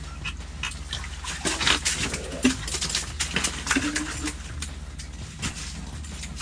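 A walleye being landed through an ice-fishing hole: water splashing and the fish flopping and knocking against the ice and gear, a flurry of sharp knocks with a couple of short low grunts about midway, over a steady low hum.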